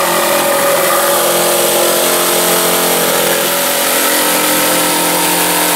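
Corded jigsaw running steadily at speed while cutting through a thin plywood panel.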